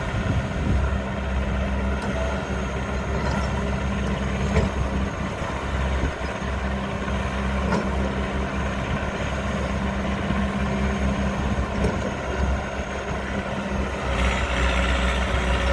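Excavator's diesel engine running steadily, with a brief rise in higher-pitched hiss near the end.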